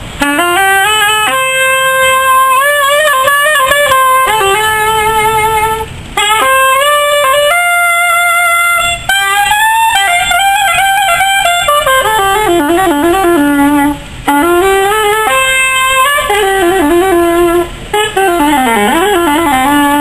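Soprano saxophone playing a melody, with vibrato on the held notes and a few brief pauses between phrases.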